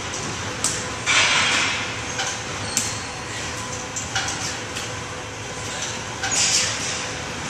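Rotational medicine ball throws and catches: sharp slaps of the ball in the hands and short rushing bursts every two to three seconds, over a steady hum of gym ventilation.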